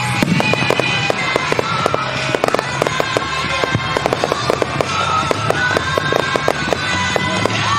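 Aerial fireworks going off in rapid succession, many sharp pops and crackles a second, over loud pop music with singing playing along with the display.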